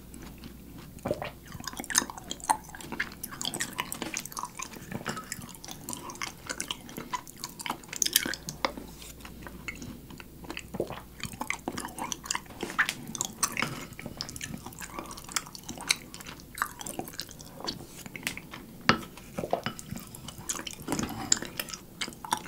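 Close-miked eating sounds of yogurt mixed with honeycomb honey being chewed: wet, sticky chewing and lip smacks in many small irregular clicks.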